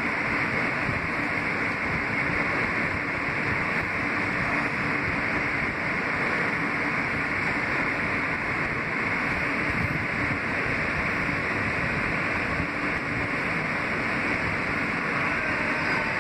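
Kawasaki R160B subway car with Siemens propulsion running at steady speed, heard from inside the car: a continuous rumble and hiss of steel wheels on the rails.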